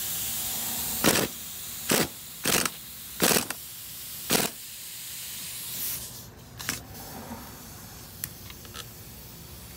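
Five short bursts of a power impact wrench spinning off the nut on a shock absorber's top mount while the shaft is held with locking pliers. A few light metal clinks follow as the mount is lifted off, over a steady hiss.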